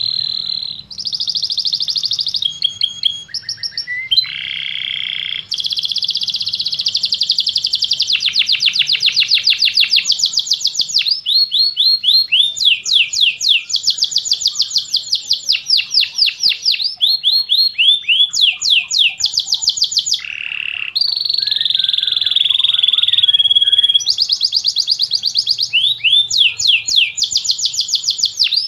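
Domestic canary singing a long, continuous rolling song: runs of rapid, high repeated notes and buzzy trills that switch to a new phrase every few seconds, with only a brief pause about twenty seconds in.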